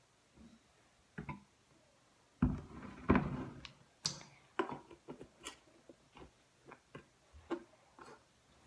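Plastic gallon jug of school glue handled while glue is poured out: two dull thuds about two and a half to three seconds in, then scattered light taps and clicks.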